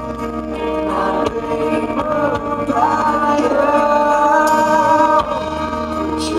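Live rock band performing, a male lead singer singing over electric guitar and drums, with a long held sung note in the middle.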